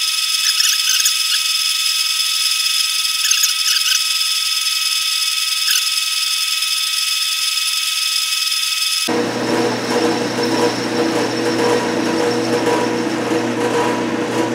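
Craftsman Atlas metal lathe turning an angle on the end of a workpiece, the cutting tool making a steady high whine with small crackles of chips. About nine seconds in the sound changes abruptly to the lathe's lower, fuller running hum.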